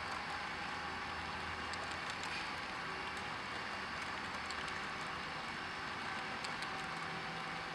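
Model train running on the layout: a steady rolling hiss of wheels on track over a low motor hum, with scattered faint clicks.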